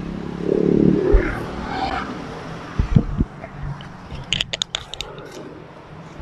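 People climbing into a van through its open side door: a few dull thumps, then a quick run of sharp clicks and crackles about four seconds in.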